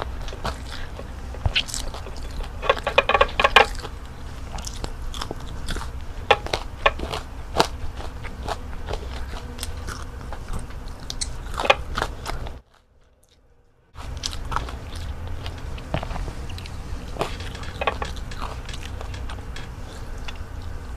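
Close-miked eating sounds: crisp crunching bites into breaded fried calamari, densest about three seconds in, then scattered chewing and mouth clicks while salmon and rice are eaten by hand. The sound cuts out completely for about a second a little past halfway, over a steady low hum.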